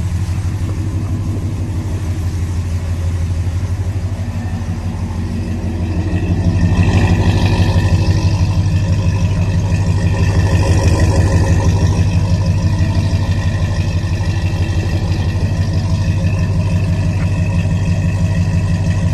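Ram 1500's Hemi V8, fitted with a new aftermarket Greene Racing camshaft, idling steadily at the exhaust tip. It gets louder about six seconds in.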